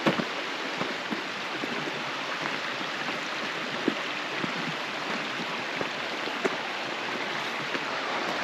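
Steady rush of a mountain stream, with a scattering of irregular footsteps on the trail.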